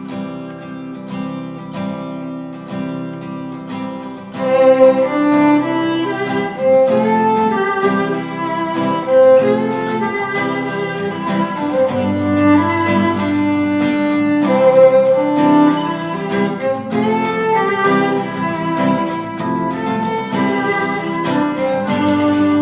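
Instrumental background music led by violin over guitar, with a regular beat; it grows fuller about four seconds in.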